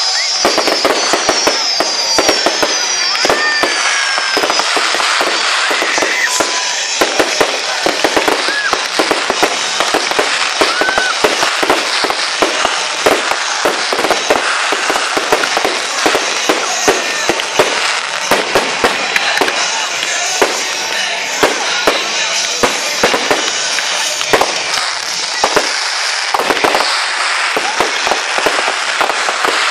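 Fireworks display going off close by: a dense, continuous crackle packed with rapid sharp bangs from bursting shells and cake shots, with a few short whistles in the first ten seconds or so.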